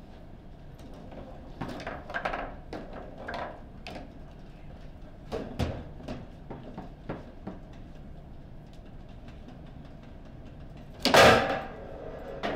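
Table football play: rods and plastic figures clacking and the ball struck, with a sharp knock about five and a half seconds in as the ball goes into the goal. A much louder burst comes near the end.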